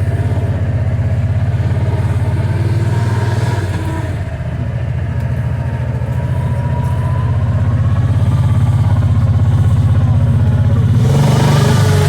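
Kawasaki Teryx 800 side-by-side's V-twin engine running under way on a dirt trail. It eases off about four seconds in, then builds again toward the end, where a brief hiss joins it.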